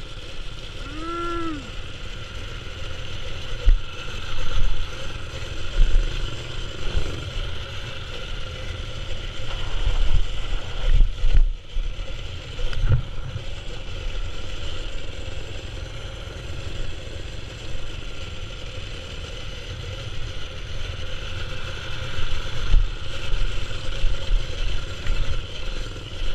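Mini-bike's Predator 212 single-cylinder four-stroke engine running steadily while the bike rolls down a rough, rocky trail, with irregular low bumps and knocks from the ride.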